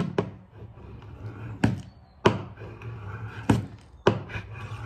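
Shave hook scraping the oxidised surface off sheet lead, cleaning it for welding, with about six sharp knocks and scrapes spaced through the strokes.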